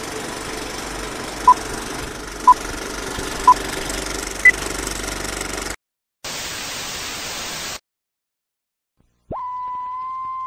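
Retro intro sound effects: a steady hiss with four short beeps a second apart, the last one higher, like a countdown. It cuts to silence, then a burst of TV static about six seconds in. After a pause, a steady beep tone starts near the end.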